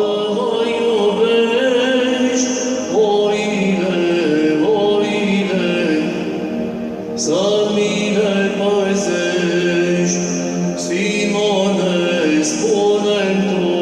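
Orthodox hymn sung in Romanian, a sung melody with no break.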